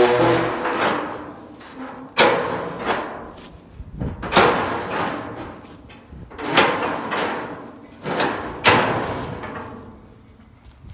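Heavy metal-on-metal strikes on a steel flatbed trailer's rub rail from a long-handled hammer, five blows about two seconds apart. Each blow rings out and fades over about a second and a half, the sound of the rail being hammered during a rub rail repair.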